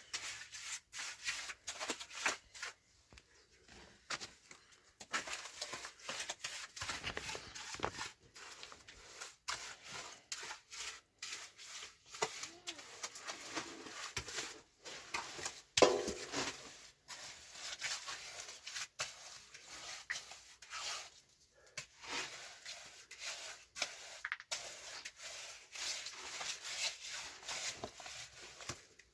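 Irregular scraping and rubbing strokes of a hand tool working cement on a rough surface, with one sharp knock about 16 seconds in.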